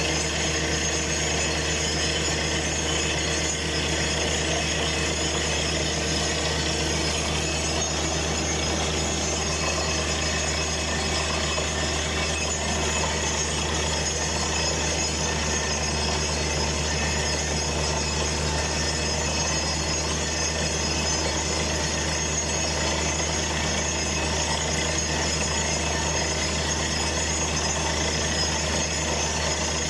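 Truck-mounted water-well drilling rig running steadily, a constant engine drone under the hiss and splash of water being blown up out of the borehole around the drill pipe.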